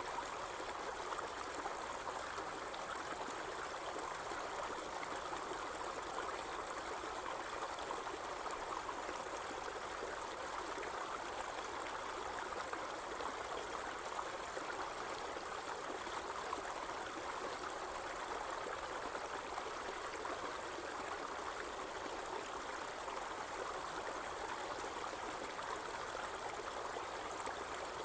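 Irrigation water flowing steadily through a field, a continuous running-stream sound with no pauses.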